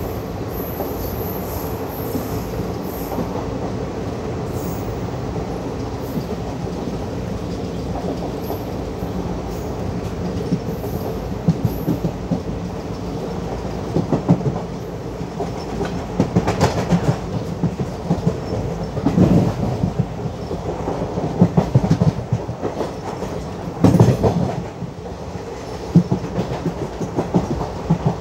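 Passenger train coach running along the line, its wheels rumbling steadily on the rails. In the second half the wheels clatter louder and more unevenly over rail joints and points.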